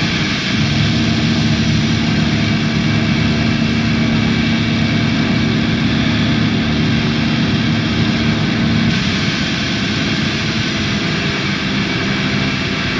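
Drone/noise music: a dense, steady wall of hiss and rumble with a sustained low hum underneath, the hum dropping away about nine seconds in.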